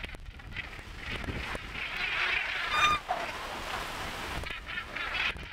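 A feeding flock of northern gannets calling with harsh, honking croaks, thickest about two seconds in, with one clearer pitched call about three seconds in. Sea water and wind run underneath.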